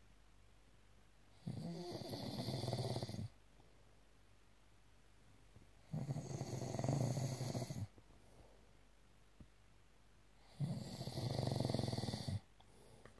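Snoring from a sleeper: three long snores, each lasting about two seconds and coming every four to five seconds, with quiet between them.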